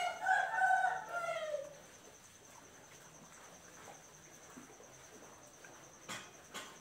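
A short pitched animal call, about a second and a half long, in a few pieces and falling in pitch at the end, over a faint, steady, high insect trill. Two sharp clicks near the end.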